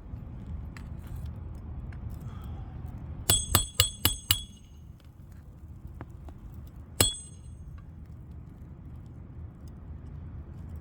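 Roofing hatchet striking roofing nails into asphalt shingles: five quick ringing metal-on-metal blows about three seconds in, then one more blow a few seconds later.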